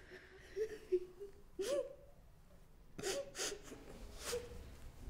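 A woman crying into a handkerchief: a wavering, whimpering cry broken by a few short, sharp sniffs.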